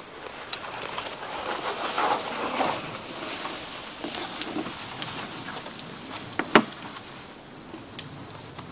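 Footsteps crunching and rustling through dry leaf litter and brush on the forest floor, loudest about two to three seconds in, with one sharp crack about six and a half seconds in.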